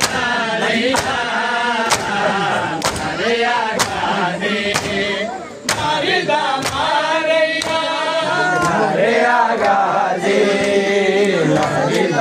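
A group of men chanting together in a mourning lament while striking their chests in unison (matam). The slaps land as sharp, steady beats about once a second under the chant.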